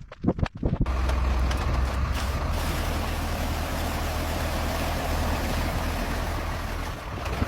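A few knocks, then about a second in a motor starts up and runs steadily: a low hum with a loud hiss over it.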